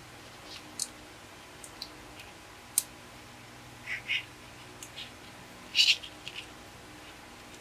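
Plastic LEGO Technic beams and pins clicking and snapping together as a frame is put together by hand: scattered single clicks, a pair of short squeaks about four seconds in, and the loudest snap about six seconds in.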